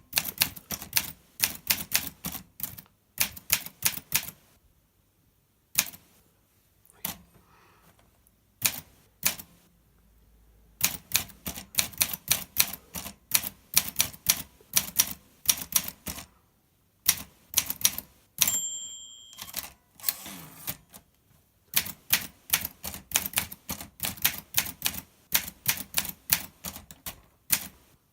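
Olympia SM2 portable typewriter being typed on: runs of quick, sharp key strikes with short pauses. About two-thirds through, the margin bell dings once, then there is a longer sliding sound as the carriage is returned, and rapid typing resumes.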